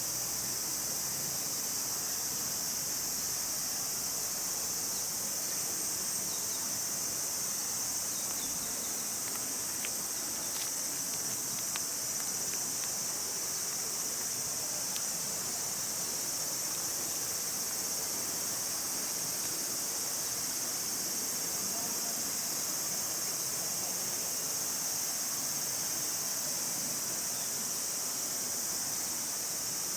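Steady chorus of insects: a high, continuous trilling that holds unchanged throughout.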